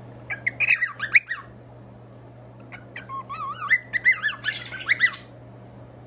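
Small pet parrots, a cockatiel among them, chirping and warbling right at the microphone. There are two bursts of quick, wavering whistled notes: a short one about half a second in and a longer one from about three to five seconds in that ends in harsher chatter.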